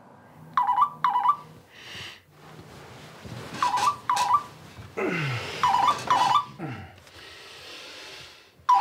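Mobile phone ringing: a warbling electronic ringtone in short double rings, repeating every two to three seconds. About five seconds in, a man lets out a low, sleepy groan that falls in pitch.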